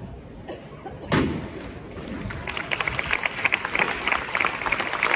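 A single loud knock with a short ringing tail about a second in, then a crowd breaks into applause that builds and keeps going.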